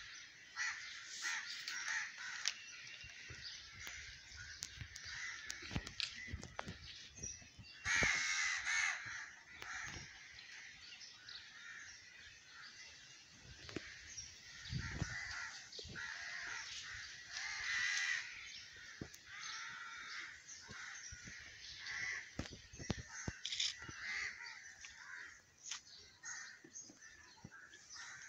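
Birds calling in the trees, many overlapping calls throughout, the loudest a third of the way in and again about two-thirds in. Scattered faint low knocks underneath.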